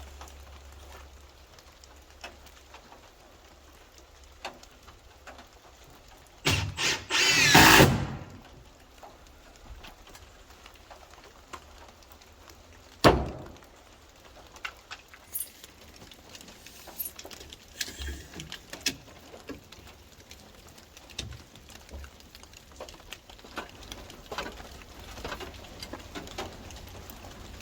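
Construction work sounds: a power drill runs briefly with a whine that rises in pitch, about six to eight seconds in. A single sharp knock comes around the middle, with scattered light knocks and handling noises between.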